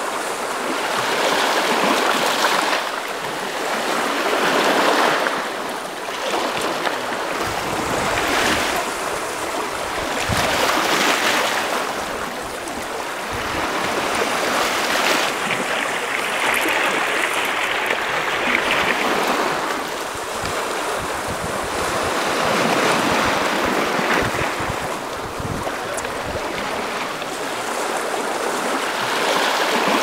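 Small Black Sea waves washing onto a shallow sandy beach, the surf swelling and fading every few seconds, with a light sea breeze at times.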